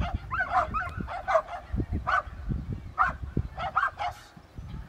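Search-and-rescue dog barking repeatedly, about seven or eight short barks in a loose series. Rubble-search dogs bark like this to mark a find.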